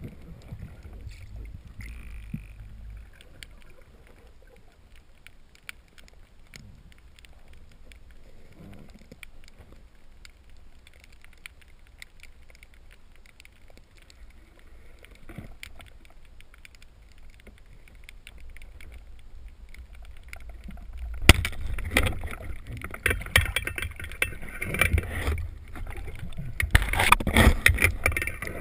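Underwater recording on a spearfishing dive: faint low rumble with scattered crackling clicks, then, about 21 seconds in, a sudden sharp crack followed by several seconds of loud, churning noise.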